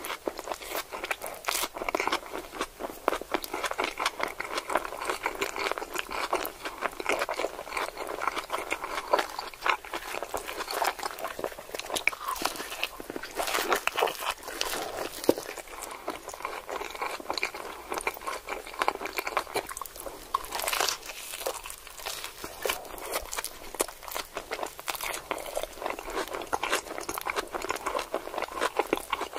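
Someone biting and chewing a crunchy hard-shell taco, a continuous run of crisp crunches.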